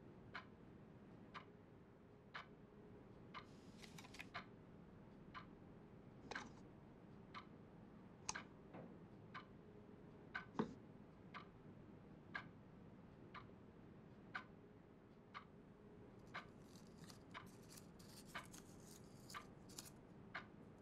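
A clock ticking faintly and steadily, about once a second. A soft knock comes about halfway through, and light rustling a few seconds in and again near the end.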